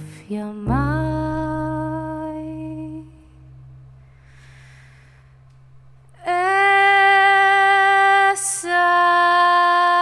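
A woman's voice holding long, slow notes over a sustained low bowed cello note. The first note fades out about three seconds in, a breath is heard, then she sings a loud held note from about six seconds in, breaks briefly, and holds another long note.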